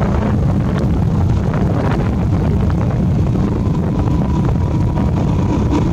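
Motorbike engine running steadily on the move, with wind noise on the microphone.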